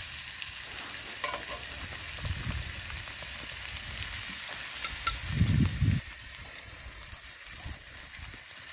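Venison heart and vegetables sizzling in a cast iron skillet over an open wood fire, with a metal spatula now and then clicking against the pan. A brief low rumble a little past halfway.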